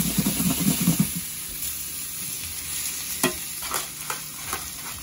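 Fresh spinach sizzling in a hot frying pan in rendered burger fat and juices, with the pan shaken and the leaves tossed during the first second. A few sharp clicks follow after about three seconds.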